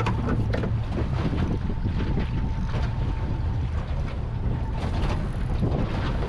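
Small boat's 50 hp outboard motor running steadily under way, with wind buffeting the microphone and water washing along the hull.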